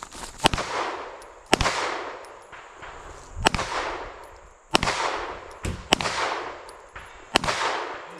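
Pistol fired about seven times at an uneven pace, shots a second or more apart with one quick pair, each shot followed by a rolling echo.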